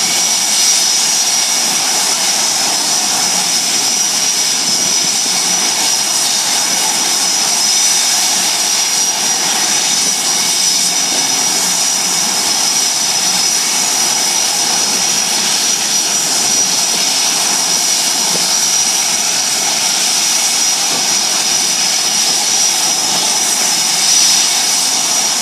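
Blue Angels F/A-18 Hornet jet engines running on the ground: a steady, loud roar with a high-pitched whine held at one pitch.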